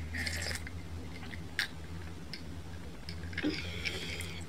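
A person sipping and swallowing a drink from a glass close to the microphone, with soft mouth sounds and a small swallowing click, over a faint steady low hum.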